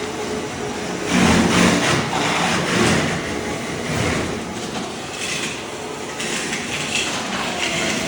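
Ride-on floor scraper's blade scraping thin-set tile mortar off a concrete slab: a continuous rough scraping and clattering with irregular knocks, loudest about a second in.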